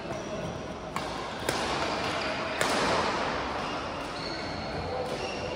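Badminton rackets striking a shuttlecock during a rally: a sharp hit about a second in, another half a second later, and a louder hit about two and a half seconds in, with a short burst of noise after it.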